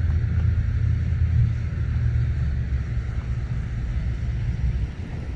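Diesel engines of a consist of EMD road-switcher locomotives (a GP30, GP9s and a GP7) working under power, a steady low rumble.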